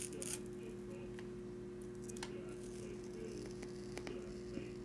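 The last of a paper tear strip ripping off a trading card right at the start, then a low steady hum with a few faint clicks and rustles as the opened card is handled.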